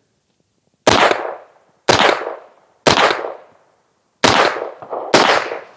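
Five 9mm shots from a 16-inch New Frontier Armory pistol-caliber carbine firing Sierra 115-grain hollow points, about a second apart with a slightly longer pause before the fourth. Each shot is a sharp crack trailing off over about half a second.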